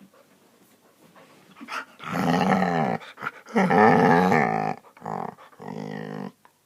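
Dog vocalizing in long, wavering, pitched calls that sit between a growl and a howl: two calls of about a second each, then a shorter one.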